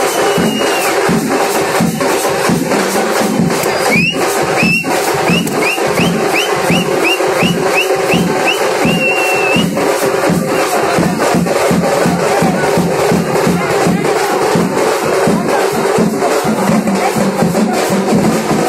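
Procession drums playing a steady beat of about three strokes a second, with a crowd around them. From about four to ten seconds in, a run of short, high, upward-sliding whistle-like notes plays over the drumming.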